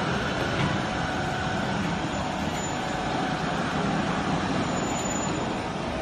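Household waste baler running, a steady machine hum during its automatic pressing cycle.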